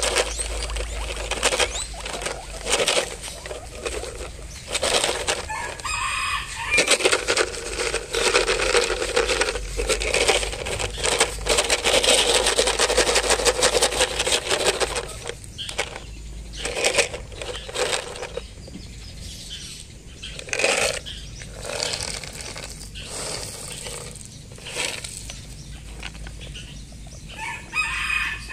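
Dense crackling and rustling, heaviest in the first half, with a short pitched animal call about six seconds in and another near the end.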